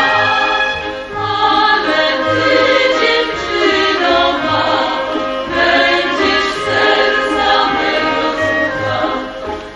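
Women's voices singing a folk song with instrumental accompaniment, a low bass note pulsing under the melody.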